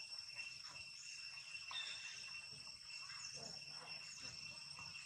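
Steady chorus of insects droning on a few fixed high pitches, with faint irregular sounds underneath.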